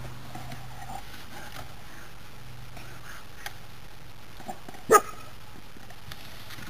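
Great Dane gnawing and tugging at a cut tree branch, with small scattered cracks and clicks of wood, and one short loud sharp sound about five seconds in.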